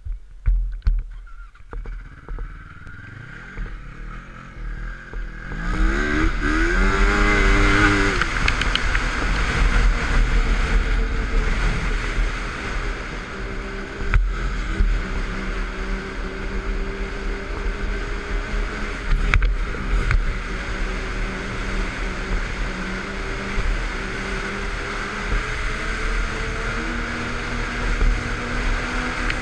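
Yamaha snowmobile engine, heard from the rider's helmet. After a quieter start with a few knocks, it revs up about six seconds in as the sled pulls away, then runs steadily at speed over a constant rushing noise.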